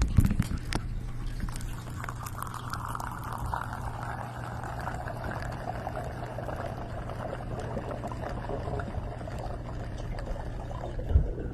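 Liquid being poured steadily into a container for several seconds, with a knock at the start and another near the end.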